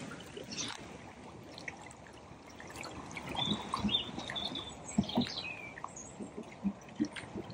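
Small birds chirping, with a short falling call about five seconds in, over a faint trickle of running water and a few small splashes.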